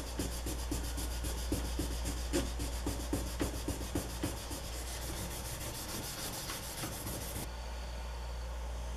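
An old metal file being scrubbed by hand in quick, short back-and-forth rubbing strokes, several a second, over a steady low hum. The strokes stop about three-quarters of the way through, leaving only the hum.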